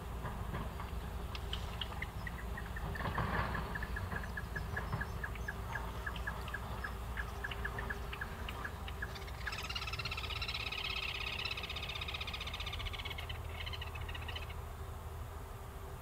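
Over a steady low rumble, a run of evenly spaced short, high ticking notes at about three a second, followed from about halfway by a dense, high rattling chatter lasting about five seconds.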